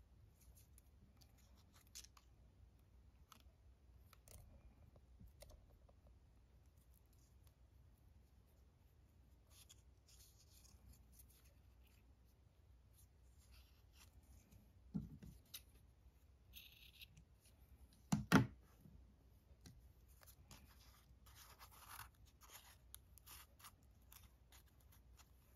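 Faint rustling and scratching of thin twine being threaded and pulled through a paper origami wreath, with the paper handled between the fingers. A brief bump comes about 15 seconds in and one sharp knock about 18 seconds in.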